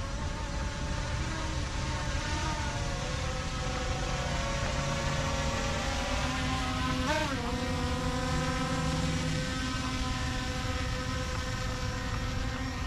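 Quadcopter fishing drone's propellers whining in flight, a steady multi-tone hum whose pitch drifts, with a quick sharp dip and recovery about seven seconds in as the drone manoeuvres.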